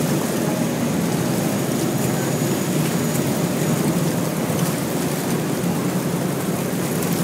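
A boat's hull breaking through frozen river ice: a steady, unbroken low rush of noise as the ice floes are pushed aside.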